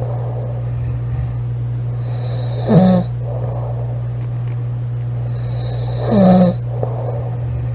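A woman snoring loudly: two snores about three and a half seconds apart, each a breathy rasp ending in a short pitched snort, over a steady low hum.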